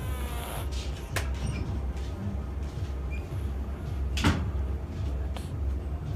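A sleeping cat snoring, a low rumble of breaths. A short pitched sound comes at the very start, and two sharp knocks fall about a second in and about four seconds in, the second one louder.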